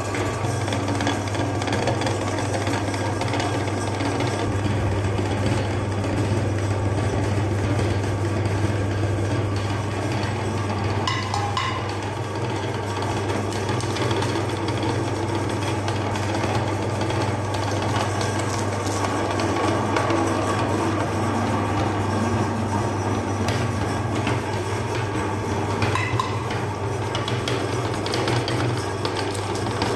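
Electric meat grinder's motor running steadily after being switched on at its rotary switch, with a strong low hum.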